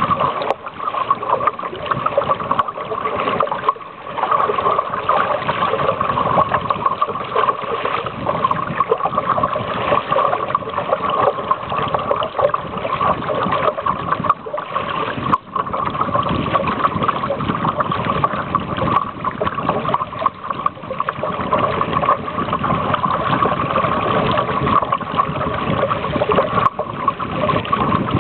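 Steady rush of water along the hull of a sailing canoe under way, with two brief dips in level.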